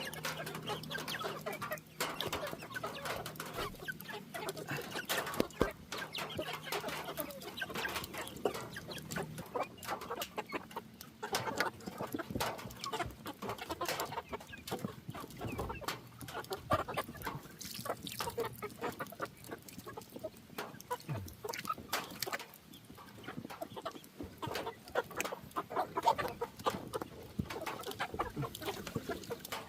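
Chickens clucking steadily while they are fed, over frequent sharp taps throughout.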